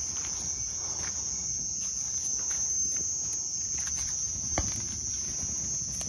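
Crickets chirping in a steady, high-pitched night chorus, with a few faint crackles from a small wood fire and one sharper snap about four and a half seconds in.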